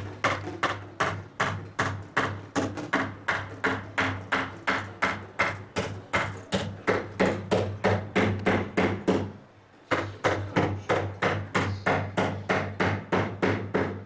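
Rhythmic striking of a weaver's beater comb packing weft down on a rug loom, about three sharp knocks a second over a steady low hum. The knocks stop for about half a second near the middle, then carry on at the same pace.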